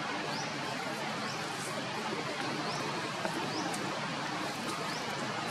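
Steady outdoor background noise with a faint, short, high chirp that rises in pitch, repeated about once a second.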